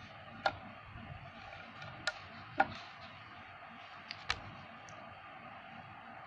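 Neodymium magnet balls clicking sharply as they snap against each other while a double row of them is straightened by hand: a handful of separate clicks, the loudest about two and a half seconds in, over a faint steady hiss.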